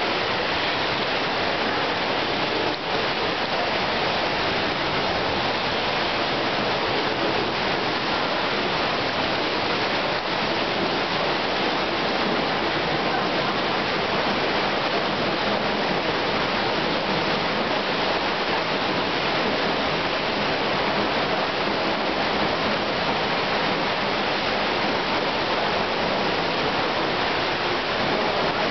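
North Falls waterfall pouring down, heard from the hollow behind the falling water: a steady, even rush of water that does not let up.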